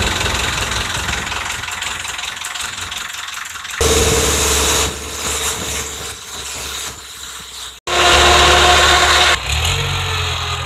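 Passenger boat's engine running while the boat is under way, with a rush of water and wind. The sound jumps between edited shots and is loudest briefly about four seconds in and again from about eight seconds in.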